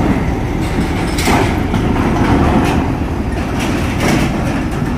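Large coach bus rolling slowly onto a ferry's steel ramp: a steady low diesel rumble with several irregular metallic clanks as its wheels cross the steel plates and joints.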